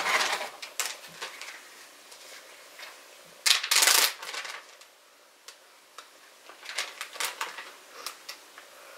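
Clear plastic Ziploc bag crinkling as it is handled and opened, in short crisp rustles; the loudest comes about three and a half seconds in, with lighter crinkles near the end.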